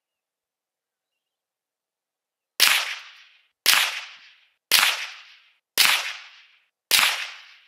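Five semi-automatic shots from a Guncraft Gen 2 AR-15-style rifle chambered in .22 Magnum (.22 WMR), fired evenly about a second apart, each a sudden report that dies away over about half a second.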